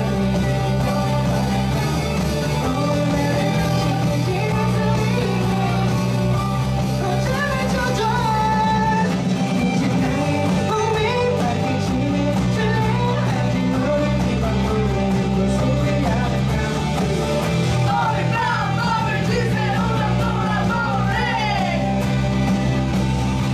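A band playing rock music live, a singer's voice over guitar and a steady bass.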